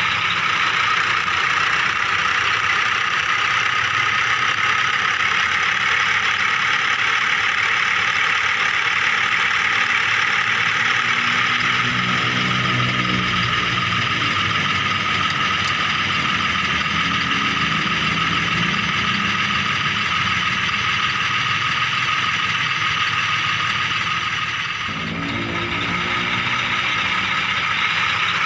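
Small electric motor and plastic gearbox of a miniature remote-control toy vehicle whirring steadily, with the pitch and load shifting briefly about halfway through and again near the end.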